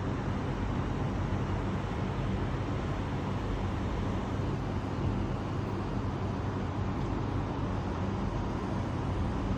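Steady rushing wind of a sandstorm with a low rumble, unchanging throughout.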